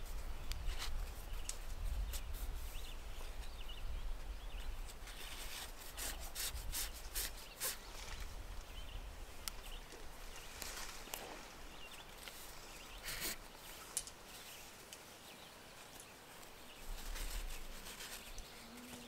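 Nylon cord rubbing and rustling in the hands as a knot is tied and worked tight, in short scratchy strokes that cluster about a third of the way in. A low rumble runs under the first half and returns near the end.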